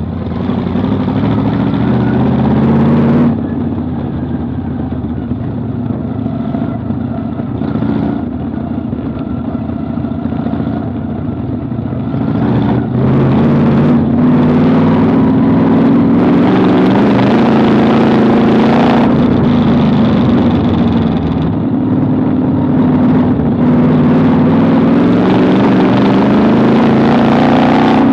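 Vintage modified dirt-track race car's engine running, heard from inside the cockpit. The engine climbs in pitch, drops suddenly about three seconds in, runs lower for a while, then gets louder about halfway through and rises in pitch again near the end.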